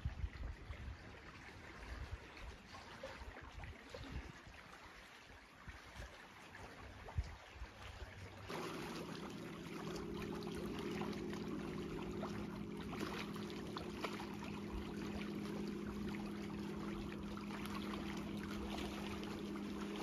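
Trickling water with wind buffeting the microphone. About eight seconds in, a steady low motor hum starts suddenly and keeps running.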